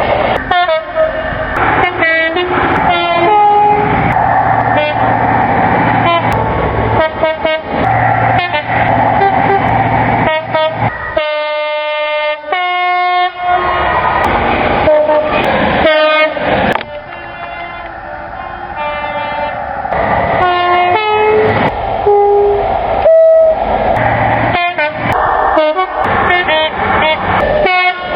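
A quick run of short recordings of British trains sounding two-tone air horns, high and low notes in turn, each blast a second or two long. Train running noise fills the gaps, and the recordings cut abruptly from one to the next.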